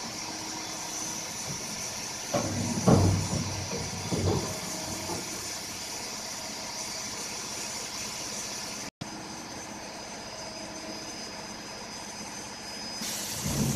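ARGO A1 CNC vertical machining center running, with a steady hum and a high steady whine. A few heavier thuds come about two and a half to four and a half seconds in, and a hiss starts near the end.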